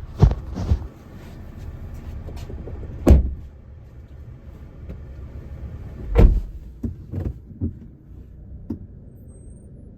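Knocking from the rear of a Kia Optima (JF) over a steady low rumble. Irregular dull thumps, the loudest about three and six seconds in, with lighter knocks between about seven and nine seconds.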